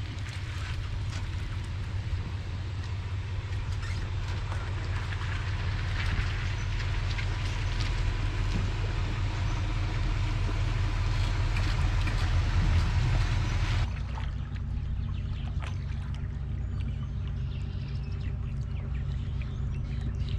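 Steady low engine hum of a pickup truck idling as it backs a boat trailer, with a hiss across the higher range. About two-thirds of the way through it cuts suddenly to a quieter steady hum, fitting the boat's Yamaha VMax SHO 250 outboard idling on the water.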